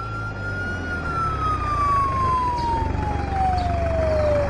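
Police car siren: one long wail falling slowly in pitch, over a steady low engine rumble, the sign of a police car arriving.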